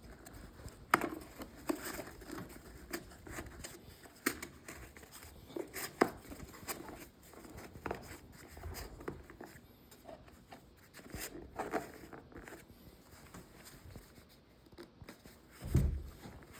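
Irregular small clicks, taps and scrapes of hand work as shims are pushed in under the ties binding a book to tighten them, with a single low thump near the end.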